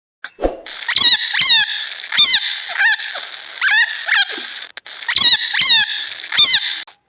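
An animal calling: a series of about nine short, squeaky calls, each falling in pitch, over a steady hiss.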